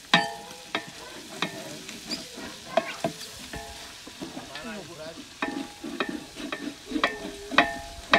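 Long wooden paddle stirring meat and onions in a large aluminium cooking pot: repeated clanks against the metal sides, each ringing briefly, at irregular intervals of about half a second to a second, over a faint sizzle of the food frying.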